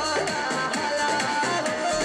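A song playing at full volume through a small homemade Bluetooth speaker built into a PVC pipe housing.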